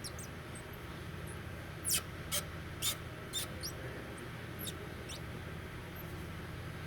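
Kia Ceed's anti-roll bar (stabilizer) end links squeaking: a run of short, sharp high squeaks at an irregular pace, most of them between about two and five seconds in, over a steady low hum.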